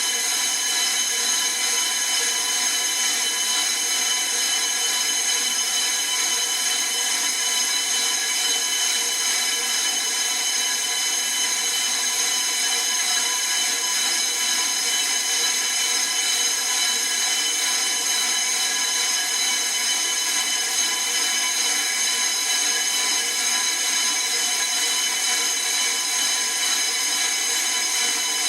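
Brake disc being resurfaced on a brake lathe: a steady, high metallic squeal of the cutting tool on the turning rotor, unchanging throughout.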